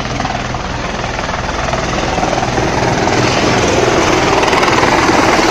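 Helicopter approaching the helipad to land, its rapid rotor beat and engine noise growing steadily louder as it comes closer.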